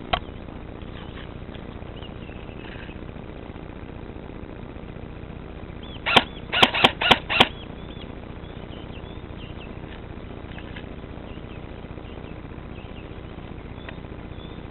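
A rapid burst of five sharp shots in just over a second, about six seconds in, after a single click at the very start. Faint bird chirps in the background.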